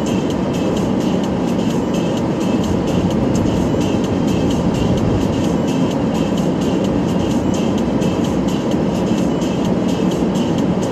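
Steady road and engine noise inside a moving car, with music playing underneath.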